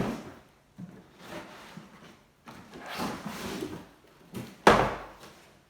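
A cardboard box and its packaging being handled and pulled apart: a run of scrapes and rustles, the loudest a sharp scrape a little over three-quarters of the way through.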